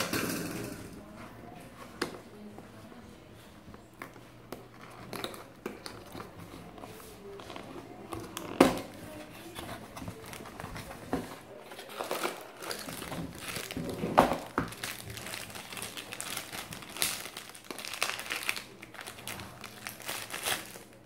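Cardboard box and plastic packaging being handled: the box flap opened and the contents pulled out, then a small plastic bag crinkling as a USB cable is unwrapped. Irregular rustling and crinkling with scattered sharper clicks, the two loudest about 8.5 and 14 seconds in.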